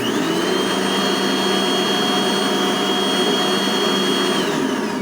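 1990s Dirt Devil Light Plus soft-body upright vacuum cleaner (about 7 amps, the quieter of two) switched on and running with a steady high-pitched whine, then switched off about four and a half seconds in, its motor winding down with a falling pitch.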